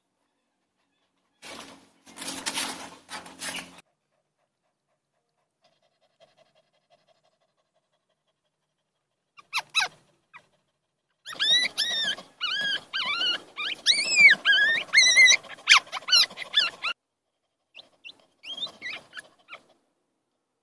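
Newborn puppies whimpering and squealing: a rapid string of short, high-pitched cries that rise and fall, with a few more near the end, after a brief stretch of muffled noise.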